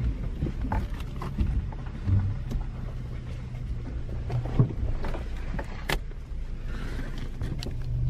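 Car cabin sound while driving on a rough dirt trail: a steady low engine and road rumble, with scattered short knocks and rattles as the vehicle goes over uneven ground.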